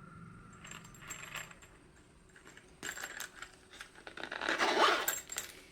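Handling of a camera cleaning kit as it is unboxed: small clicks and taps, a sharp knock about three seconds in, and a louder scraping rustle about four to five seconds in.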